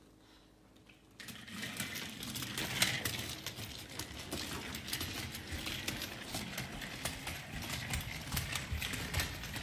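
Plastic wheels of a toy doll stroller rolling and rattling over a tile floor: a steady clatter of many small clicks that starts about a second in.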